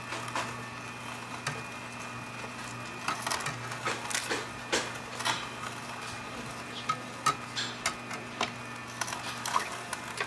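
Omega 8004 slow-speed single-auger masticating juicer running with a steady low motor hum while its auger crushes leafy greens pushed down the feed tube, giving many irregular crackles and snaps.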